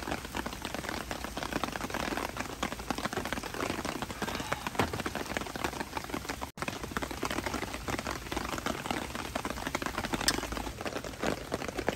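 Steady rain falling, a dense, even patter of drops, which cuts out for an instant once just past halfway.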